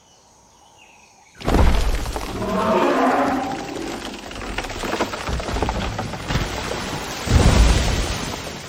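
Deep, loud animal calls starting suddenly about a second and a half in, with a second loud low burst near the end.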